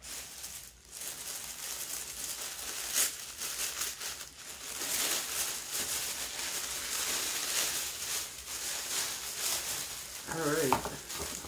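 Tissue paper packing crinkling and rustling without a break as hands rummage through it and pull it out of a cardboard box, with sharper crackles now and then.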